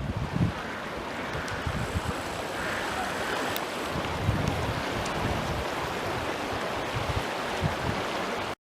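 Steady rush of swollen floodwater, with wind buffeting the microphone in low gusts. The sound cuts off suddenly near the end.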